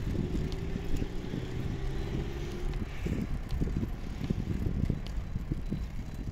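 Wind buffeting the microphone of a moving bike in uneven gusts. A low hum, falling slightly in pitch, runs under it for about the first three seconds.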